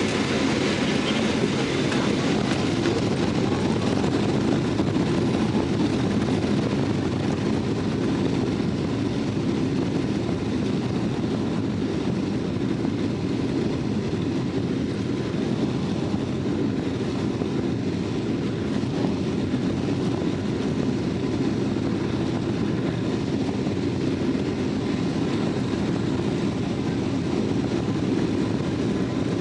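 Cabin noise inside a Boeing 777-200ER airliner at takeoff: the jet engines at high thrust and the rush of air make a steady, loud, even rumble, a little louder in the first few seconds.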